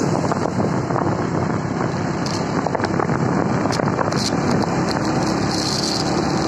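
Wind rushing over the microphone of a moving motorbike, a steady loud rush with the bike's engine running beneath it.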